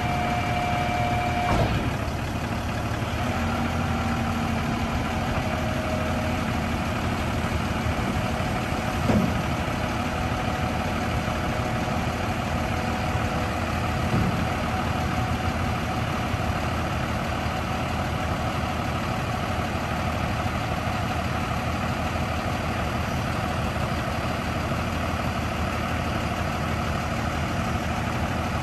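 Freightliner M2106 dump truck's diesel engine idling steadily while the hydraulic hoist slowly lowers the dump bed, with a faint whine that shifts pitch in the first few seconds. A click comes about a second and a half in, and light knocks follow around nine and fourteen seconds.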